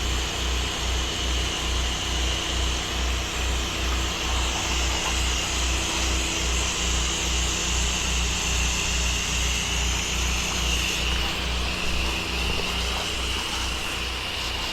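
Pressure washer running, with a steady hiss of water spraying from the wand and a low throb pulsing about three times a second.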